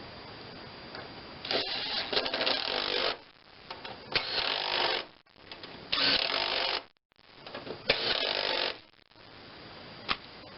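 Power driver running bolts in, four short runs of about a second each: the serrated flange-head bolts that hold a rebuilt mower-deck spindle housing being driven home.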